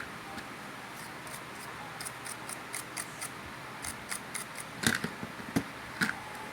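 Rapid light clicking and scraping, about three to four clicks a second, with a few louder knocks near the end: small metal parts of an opened vibrator-type hair clipper being picked and scraped clean of packed dirt.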